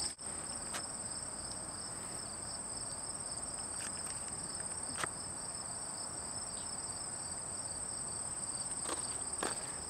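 Steady, high-pitched insect song from the grass, a continuous two-toned trilling drone, with a few light clicks and taps over it.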